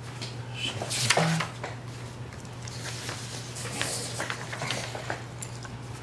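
Sheets of paper being handled and laid on a table: rustling and light scrapes, loudest about a second in, over a steady low hum.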